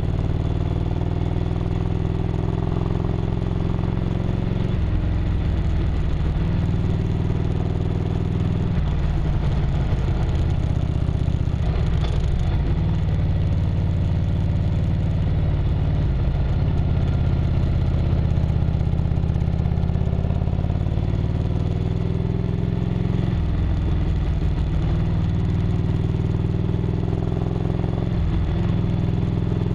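1998 Harley-Davidson Road Glide's V-twin engine running under way on a winding road, its pitch rising and falling several times as the rider comes on and off the throttle through the curves.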